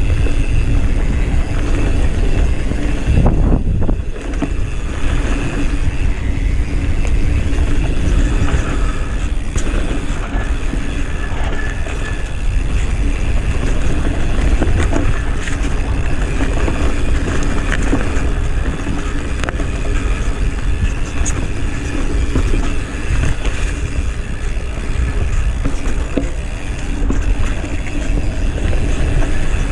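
Steady, loud wind rumble on the microphone, with a brief dip about four seconds in.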